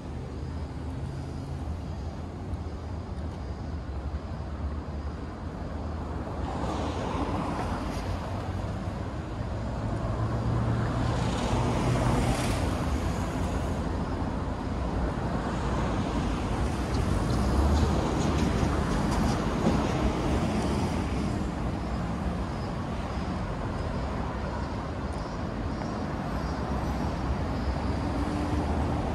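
City street traffic: a steady low rumble of engines and tyres, with several vehicles swelling past in turn.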